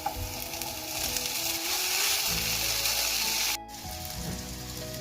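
Food sizzling in a frying pan: a loud, even hiss that cuts off abruptly about three and a half seconds in, with background music underneath.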